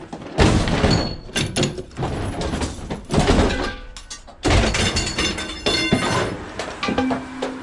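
Heavy thuds, bangs and clanks of a sheet-metal household appliance being handled and shifted as scrap, several of the knocks ringing briefly.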